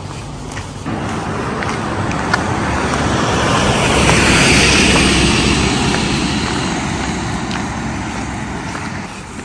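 A road vehicle driving past: its tyre and engine noise swells to a peak about four to five seconds in, then fades away.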